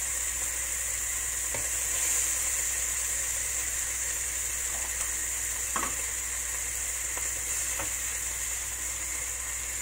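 Eggplant frying in oil in a frying pan over a gas burner, a steady sizzle, with a few light knocks of a wooden spatula against the pan.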